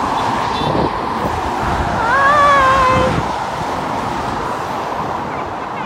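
Steady rush of dual-carriageway traffic passing below: tyre and engine noise of cars going by. From about two seconds in, a brief pitched tone, slightly wavering, sounds over it for about a second and is the loudest part.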